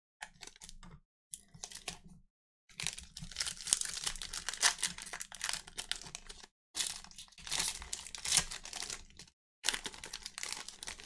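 Trading-card pack wrappers crinkling and tearing as packs are opened and handled, in several crackly stretches broken by brief pauses.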